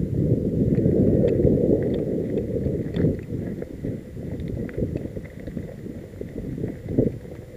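Mountain bike rolling down a rough dirt singletrack, heard from a camera on the bike or rider: a low rumble of tyres and frame rattling over bumps, mixed with wind buffeting the microphone. Scattered clicks run through it, with a sharp knock about three seconds in and another near seven seconds.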